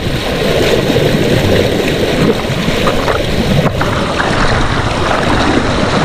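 Strong creek current rushing and splashing around a person sitting in white water, heard loud and steady from a camera held just above the churning surface.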